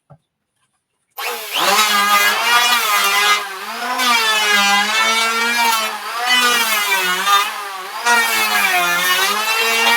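Power tool shaving wood: it starts abruptly about a second in and runs with a steady motor hum whose pitch sags and recovers every second or two as the cut loads it.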